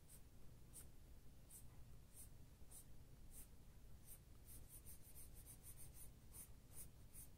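Faint scratching of a soft-core Prismacolor Premier coloured pencil on paper, in short directional strokes. They come about one every half-second, with a quick run of strokes around the middle.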